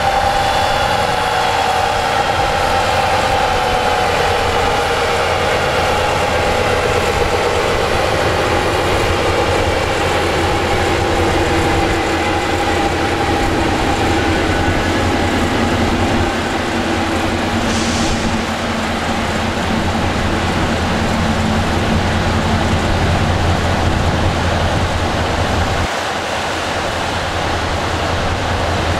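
The BMW M5 E39's wheels and drivetrain coasting down on the dyno rollers after a pull: a whine that falls slowly in pitch over about twenty-five seconds, over the steady rush of a large cooling fan. A brief hiss comes about eighteen seconds in.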